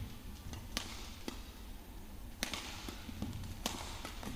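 Badminton rackets striking a shuttlecock back and forth in a women's doubles rally: about four sharp hits at uneven intervals, over a low arena hum.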